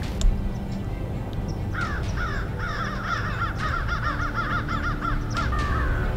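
A flock of birds calling in a rapid, harsh chattering chorus that starts about two seconds in and stops near the end, over background music. There is a sharp click near the start.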